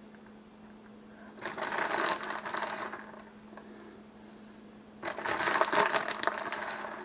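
Plastic bag of shredded cheese crinkling as it is handled, in two bursts, over a faint steady hum.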